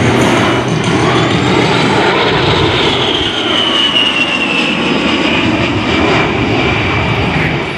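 A-10 Thunderbolt II's two TF34 turbofan engines running loud as the jet flies past, with a high whine that falls in pitch over a few seconds as it goes by.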